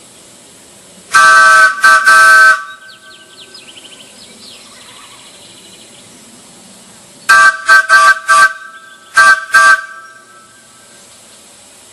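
Large wooden Ford chime whistle blown at 40 psi, sounding a loud chord of several steady notes. Two long blasts come about a second in, then a run of about six short toots between seven and ten seconds.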